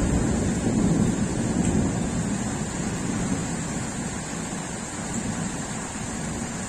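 Rolling thunder dying away: a low rumble that fades slowly over several seconds.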